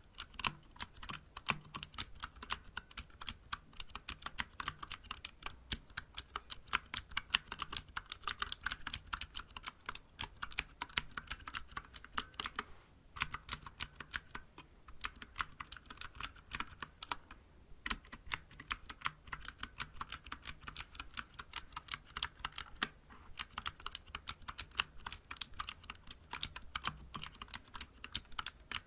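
Continuous fast typing on a Vortex Vibe mechanical keyboard with clicky Cherry MX Blue switches, SA-profile keycaps and an aluminium case: a dense run of sharp key clicks, broken by a few brief pauses.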